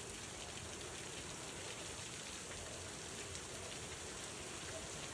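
Heavy rain falling steadily: an even hiss of rain with faint scattered drop ticks.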